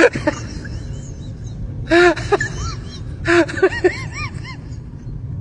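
Dogs barking in short bouts: a bark at the start, another about two seconds in, and a quick run of barks around three to four seconds in, at several different pitches.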